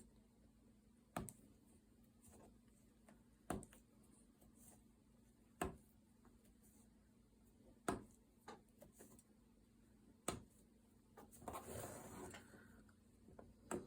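Faint, evenly spaced clicks, about one every two seconds, as potholder loops are picked up one after another with a hook and lifted on the pegs of a potholder loom, with a short rustle of handled loops near the end.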